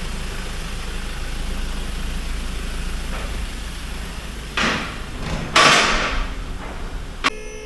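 A vehicle engine running steadily, then two loud rushes of noise about four and a half and five and a half seconds in, and a sharp click near the end.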